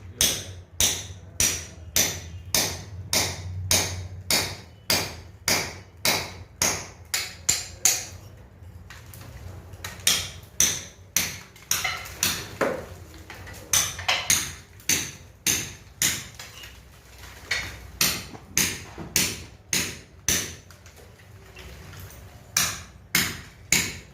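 Hammer striking a steel chisel to chip loose, water-damaged plaster and concrete off a ceiling slab, at about two blows a second in runs with brief pauses.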